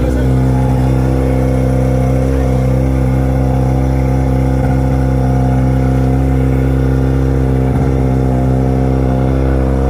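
Fire tender's engine running steadily at a constant speed while driving its pump to draw out floodwater.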